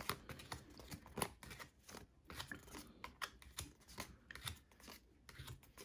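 Pokémon trading cards being flipped one behind another in the hands: a faint run of short, irregular card slides and flicks, several a second.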